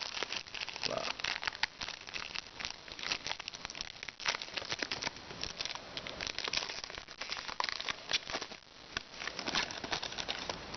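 Wrapper of a Magic: The Gathering booster pack crinkling and crackling as it is torn open and handled, a dense, irregular run of small crackles throughout.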